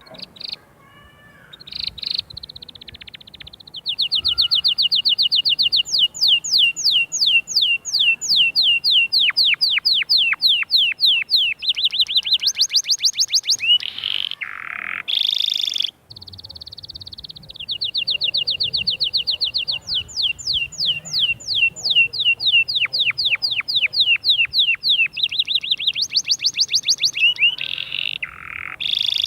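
Domestic canary singing a long song of rapid trills, each a fast run of repeated notes, some steady and some sweeping down, changing every second or two. About halfway through there is a short break, then the song starts again.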